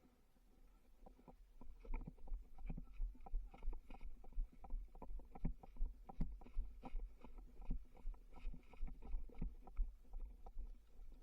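Irregular soft knocks and rustles, several a second, over a low rumble: handling noise on the microphone from a player moving on foot through the woods.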